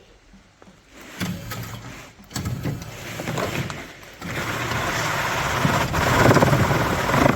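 Newly fitted electric motor of a pool-blanket roller running. It starts about a second in and grows louder in steps, then stops suddenly.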